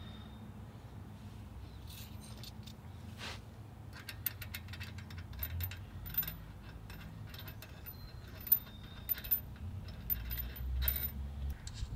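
Hand ratchet wrench clicking in quick runs as it turns a bolt on a steering stabilizer bracket, with light metal clinks. The clicking starts about four seconds in and comes again near the end.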